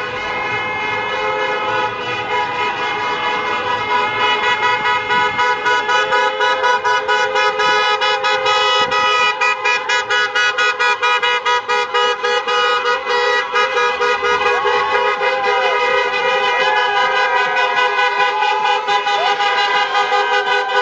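Many car horns honking together in celebration, overlapping held blasts and rapid repeated beeps. The din grows louder over the first few seconds.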